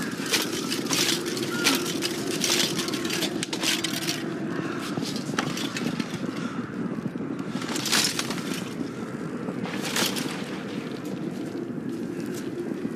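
Battle din: a noisy mass of soldiers' voices under a steady rumble, broken by repeated sharp clatters and knocks, the loudest about two and a half, eight and ten seconds in.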